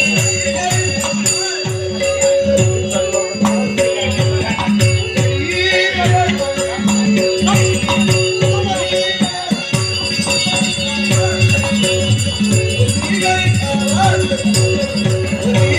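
Marathi folk devotional music: a driving hand-drum beat with shaking rattles and jingles over two steady held tones.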